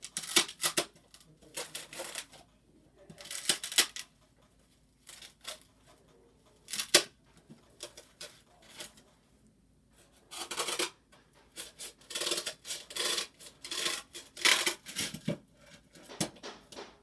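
Irregular bursts of rustling and scraping, with a few sharp clicks: things being handled and moved about close to the microphone.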